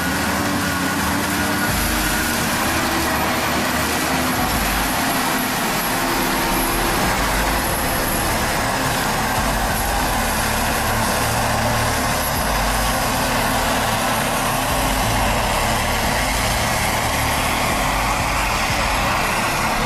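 A heavy machine's engine running steadily: a dense, even noise with no clear breaks or changes.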